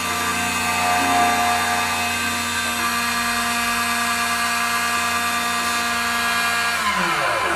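Key duplicating machine's motor and cutter running steadily with a whine and hiss while duplicating a tubular key, then switched off near the end, its pitch sliding down as it winds down.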